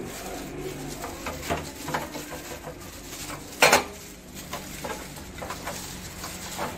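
Light clinks of an aluminium pot lid being settled on the pot, then a sharp single click about three and a half seconds in as the portable butane gas stove's knob is turned to light the burner, and another click at the very end.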